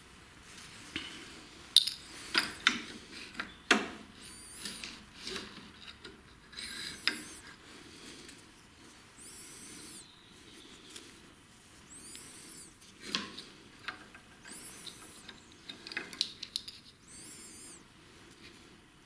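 Hands working a new nylon starter pull cord through a plastic grip handle and the handlebar cord guide: sharp clicks and taps of plastic, and about six high squeaks, each about a second long, rising then falling.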